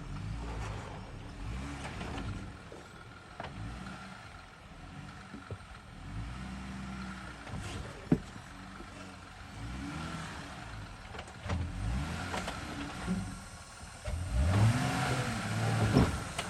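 An off-road vehicle's engine revving up and easing off again and again as it crawls over rough terrain, with a few sharp knocks from the vehicle or rocks. The loudest rev comes near the end.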